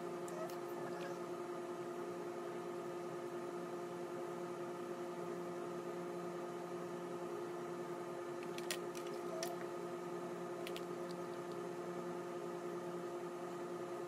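A steady, even hum made of several pitched tones, such as a fan, air conditioner or electrical appliance gives off, with a few light clicks between about eight and a half and eleven seconds in.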